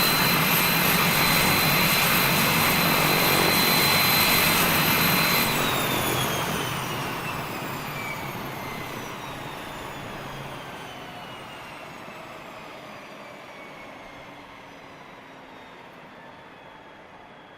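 Beechcraft King Air's twin Pratt & Whitney PT6A turboprop engines running with a steady high turbine whine, then shut off about five seconds in: the whine glides down in pitch and the noise fades slowly as the engines spool down.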